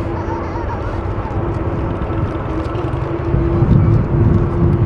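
Boeing 787-9 airliner's jet engines running with a steady rumble and a steady hum, growing louder about three seconds in.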